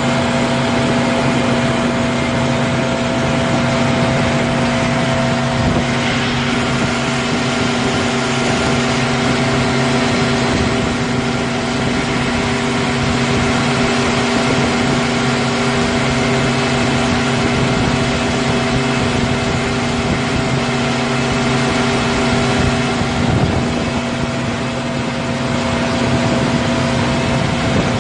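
Mitsubishi S12H V12 diesel engine of a 1000 kW generator set running steadily: a constant, loud mechanical drone with a deep, even hum.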